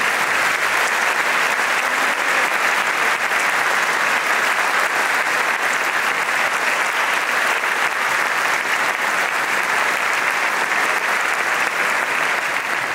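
Concert-hall audience applauding steadily, a dense even clapping from a large crowd.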